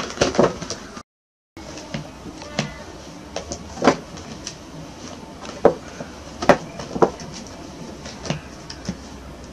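Clear plastic packaging and a small cardboard box crinkling and knocking as a baby monkey paws at them, in irregular sharp snaps, a few of them louder. A brief silent gap about a second in.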